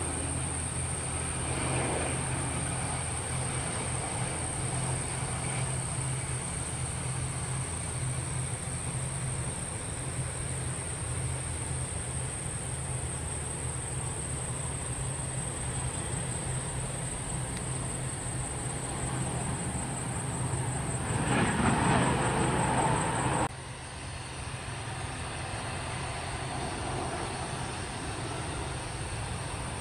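Jet engine noise from a three-engine Dassault Falcon business jet landing and rolling out on the runway, with a steady hum and high whine. The noise swells into a louder rush for about two seconds near the end, then cuts off abruptly. Fainter, steady jet noise of a Boeing 737 on approach follows.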